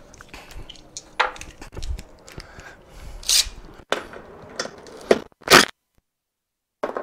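Scattered clicks and knocks of metal parts being handled, with two short bursts of a cordless drill-driver on a bolt, about three and five and a half seconds in.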